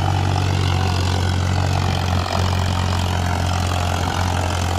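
Tractor engine idling steadily, an even low hum.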